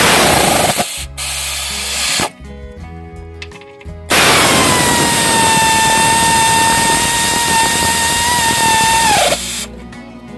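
Air ratchet running bolts in: two short bursts of about a second each, then a long run of about five seconds, a loud hissing whine that drops in pitch as the trigger is let go.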